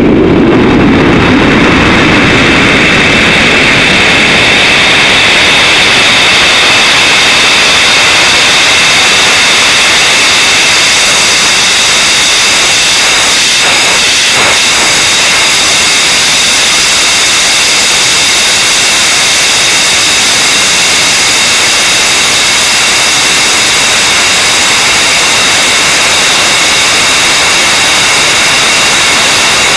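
Rocket in powered ascent heard from its onboard camera: a loud, steady rush of motor noise and airflow, with several high, steady whining tones over a hiss. A deep rumble at the very start fades within the first couple of seconds.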